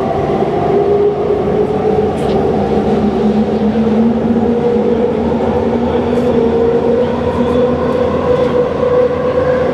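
SkyTrain car running along the guideway, heard from inside the car: a steady rumble of wheels on the rails with the linear induction motor's whine gradually rising in pitch.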